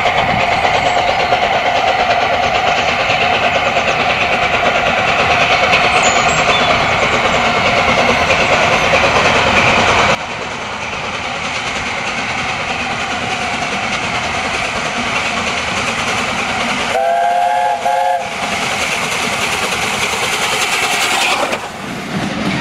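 Steam locomotive 60007 Sir Nigel Gresley, an LNER A4 Pacific, running towards the listener with a steady rush of steam and rail noise, which drops suddenly in level about ten seconds in. About seventeen seconds in comes one short chime-whistle blast of about a second.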